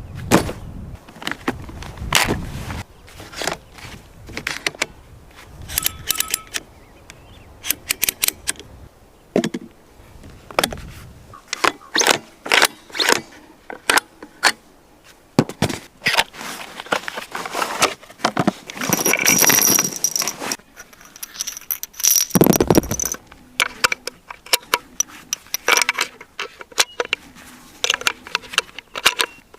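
Irregular metallic clicks, clinks and scrapes of hard parts being handled, with a longer rattling scrape about two-thirds of the way in and a dull thud soon after.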